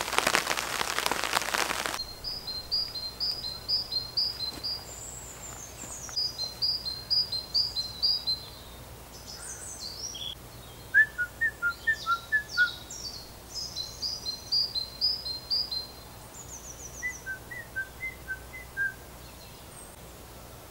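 Rain pattering on the tarp overhead, cut off abruptly about two seconds in. Then woodland birds singing: repeated runs of quick high chirps, with a few lower paired notes now and then.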